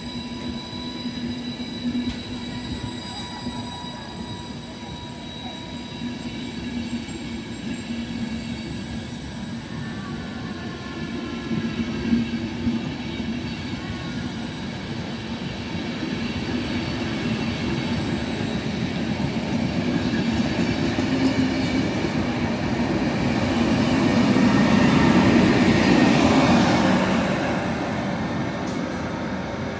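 Trenitalia Intercity passenger train rolling past, its wheels running on the rails with a steady high-pitched squeal over the rumble. It grows loudest about 25 seconds in, then eases off near the end.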